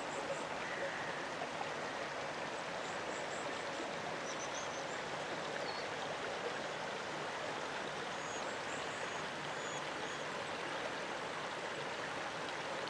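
Shallow mountain stream running over stones: a steady rush of water, with a few faint high chirps now and then.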